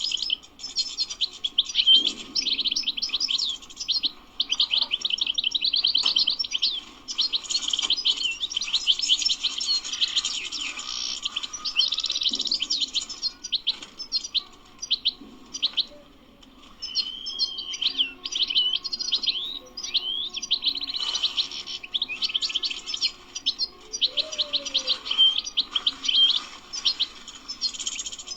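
European goldfinch singing: a long, fast run of twittering, tinkling notes, with a short break about halfway through before the song picks up again.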